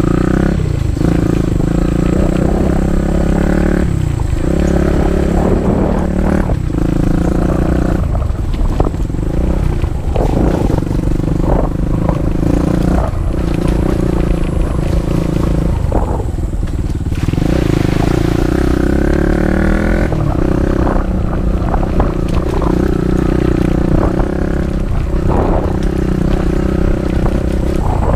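Dirt bike engine running under way over a rough trail, its revs rising and dropping off again and again as the throttle is worked.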